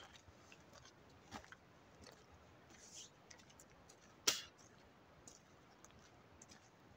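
Faint, scattered crunches and clicks of footsteps on a stony dirt trail, roughly one a second, with one sharper knock about four seconds in.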